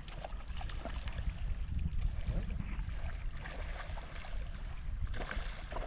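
Steady low rumble with faint water sounds and a few light clicks scattered through it.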